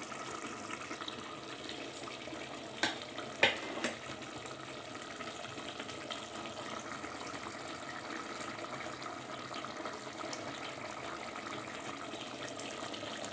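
Chicken masala gravy simmering in an open pressure cooker on the stove, a steady bubbling hiss, with two short knocks about three seconds in.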